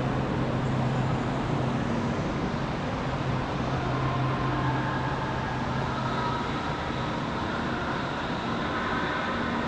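Steady ambient hum and hiss of a large railway station hall, with a low drone that eases after about three seconds.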